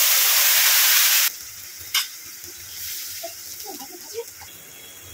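Ground wet spice paste dropped into hot oil in a pan: a loud sizzle that falls away about a second in to a quieter sizzle. A sharp click comes near the middle.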